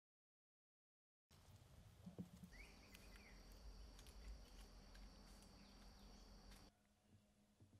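Near silence: about a second of dead silence, then faint outdoor ambience with a steady, high-pitched faint tone through the middle few seconds.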